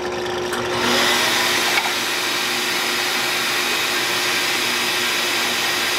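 Drill press spinning a sanding drum inside a spindle-sander jig, with a shop vacuum drawing on the jig's dust port: a steady whir and rush that swells about a second in.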